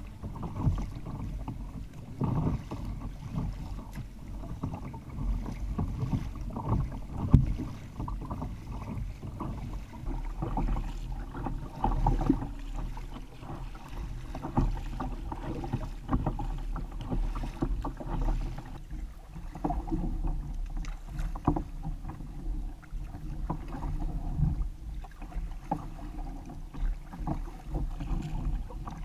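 Sea kayak paddling: an Ocean Kayak Prowler Elite 4.5 sit-on-top being paddled through choppy water, with irregular paddle-blade splashes and water slapping the hull over a low wind rumble on the camera mic. One stroke about seven seconds in is louder than the rest.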